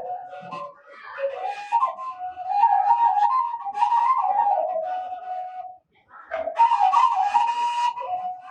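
Washint, the Ethiopian end-blown bamboo flute, playing a stepping, ornamented melody with a breathy tone. The line breaks off briefly about six seconds in, then resumes louder.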